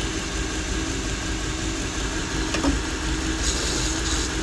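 Toolker 1x30 belt grinder motor running steadily as a chef's knife is given soft, light-pressure sharpening passes on the belt, with a brief higher hiss from the blade on the belt about three and a half seconds in.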